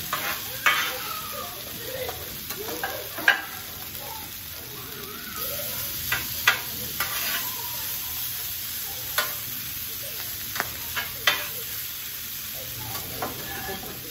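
Food frying with a steady sizzle, with sharp knocks and scrapes of a cooking utensil against the hot cooking surface every second or two.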